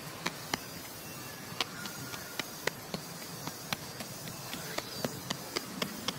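Sharp, irregular clicks, two or three a second, over a steady outdoor background hiss.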